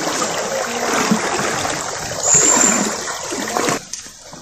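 Floodwater flowing fast over a submerged street, a steady rushing noise that cuts off abruptly near the end.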